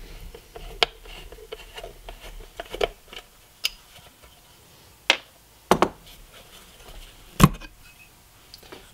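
A T25 Torx screwdriver backing screws out of a plastic headlight housing, with scattered light clicks and scrapes. A few sharper knocks follow as the reflector bowl is pulled free and handled, the loudest about seven and a half seconds in.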